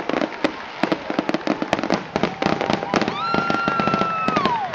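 Fireworks finale barrage: a rapid, overlapping string of shell bursts and crackling reports, many bangs a second with no let-up. About three seconds in, a high drawn-out tone is held and then falls away just before the end.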